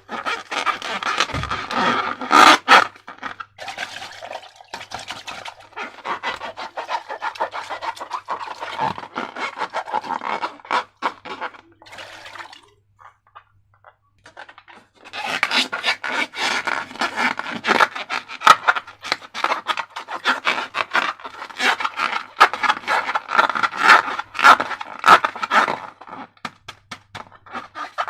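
Rubber balloons and slime being handled up close: rubbing and scraping with many small sharp clicks, broken by a pause of about two seconds around the middle.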